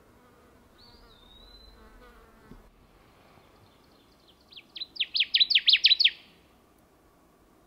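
Connecticut warbler singing: one loud song of about ten quick, sharp notes, growing louder as it goes and lasting about a second and a half, beginning past the middle. A faint thin high note sounds about a second in.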